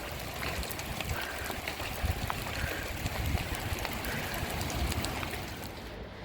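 Rain falling, with drops pattering and water trickling, and a short high note repeating about every one and a half seconds.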